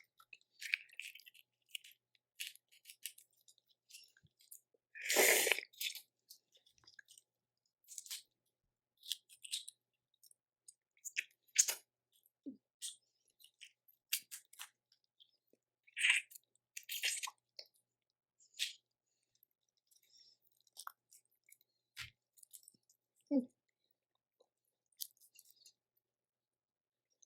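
Close-up eating of boiled seafood: scattered shell cracks, clicks, slurps and chewing, in short irregular bursts, the loudest about five seconds in.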